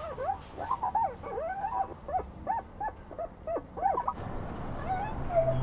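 A quick run of short high pitched tones, each gliding up and falling back, two to three a second, like a wavering tune. About four seconds in, a steady low hum starts, and a held tone sounds near the end.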